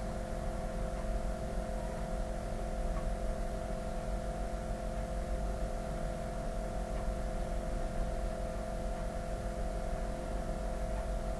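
Steady background hum with two steady mid-pitched tones over a low drone: room tone from the narrator's microphone, with no other events.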